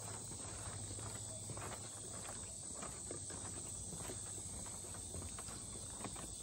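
Steady high-pitched insect drone with scattered soft irregular clicks and rustles.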